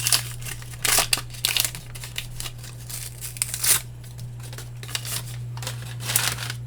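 Plastic wrapper of a baseball card pack crinkling and tearing as it is opened by hand, in irregular bursts with the loudest near the start, about a second in, and around three and a half seconds in.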